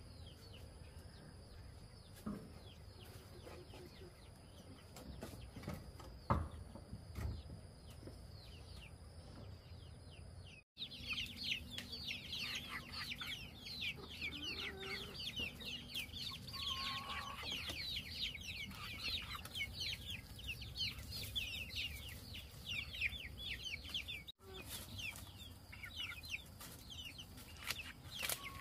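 Chickens calling: a dense stream of short, high, falling chirps, several a second. The chirping is faint at first and much louder after a brief dropout about eleven seconds in.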